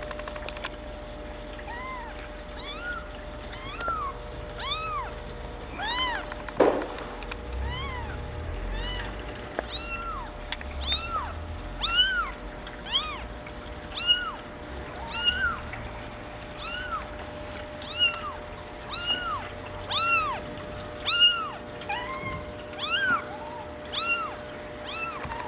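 Maine Coon kitten mewing over and over: short, high-pitched mews, each rising then falling in pitch, about one a second and coming a little faster later on.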